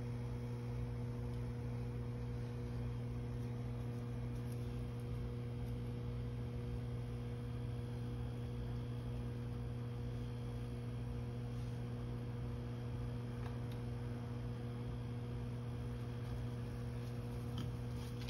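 A steady low electrical hum made of a few even tones, mains-type, with nothing else standing out above it.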